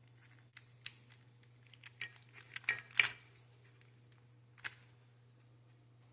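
A few sharp clicks and light clinks of something being handled, bunched around the middle with the loudest about three seconds in, over a faint steady hum.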